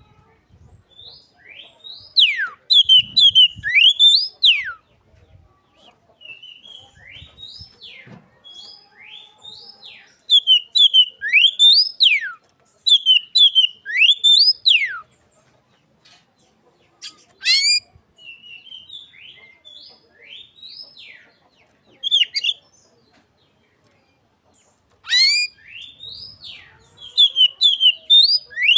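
Oriental magpie-robin singing in imitation of an Asian pied starling: loud whistled notes that rise and sweep sharply down, delivered in bursts of several notes separated by short pauses.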